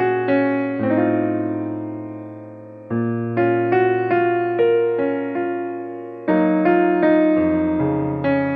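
Background music: a gentle solo piano piece, notes struck and left to ring and fade, with new phrases entering about a second in, around three seconds in, and past six seconds.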